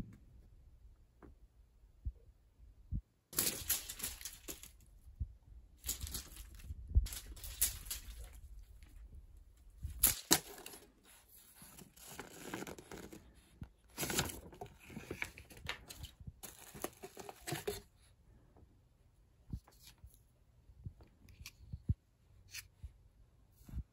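Rustling and crinkling of packaging in repeated bursts through the middle, with a few sharp crackles: a cardboard box being opened and bubble wrap and pet-food pouches inside it handled. The start and end are quiet apart from faint clicks.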